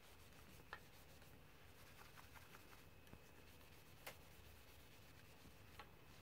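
Very faint rubbing of a cloth on a waxed totara wood bowl as it is buffed, with a few soft clicks, the clearest about a second in and about four seconds in.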